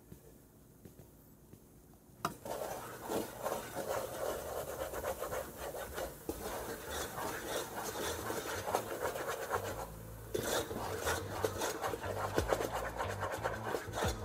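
Wooden spatula scraping and stirring thick red bean paste with sugar in a pot: a continuous run of rubbing, scraping strokes that starts about two seconds in.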